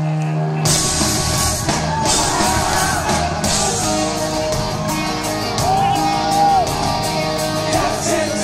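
Loud live post-hardcore rock band. A held guitar tone gives way, under a second in, to the full band, with drums, cymbal crashes and distorted guitars.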